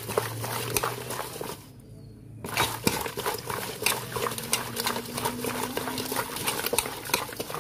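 Hands rubbing and turning a pot of gutted climbing perch in water: wet squelching with many quick clicks and scrapes of the fish against each other and the aluminium pot, with a brief lull about two seconds in.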